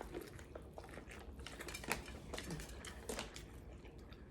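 Eating and food-handling sounds: scattered small clicks and crackles, with chewing.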